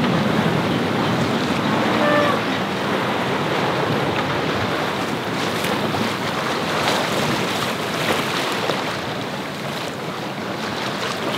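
Wind buffeting the microphone and water rushing and splashing along the hull of a sailboat under way in a swell, with a brief high-pitched tone about two seconds in.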